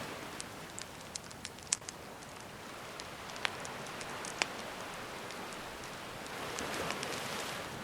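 A wood campfire crackling, with scattered sharp pops, over gentle sea waves washing in. The surf eases after the start and swells again near the end.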